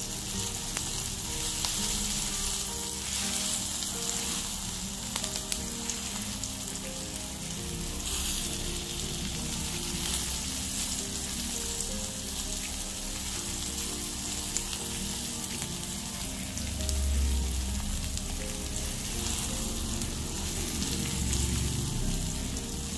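Sirloin steak searing in a hot frying pan: a steady sizzle with fine crackles.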